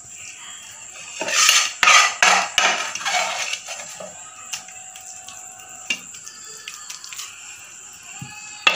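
Metal spoon scraping carrot halwa out of an aluminium pan onto a stainless steel plate. A quick run of loud scrapes and knocks starts about a second in and lasts around two seconds, followed by lighter scraping and a few taps, with a sharp knock near the end.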